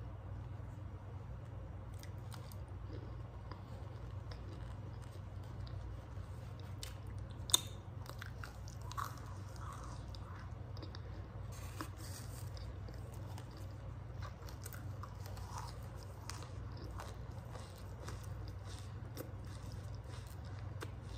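Clumps of cornstarch being bitten and chewed, squeaky and lightly crunchy, with scattered soft clicks and one sharp click about seven and a half seconds in. A steady low hum runs underneath.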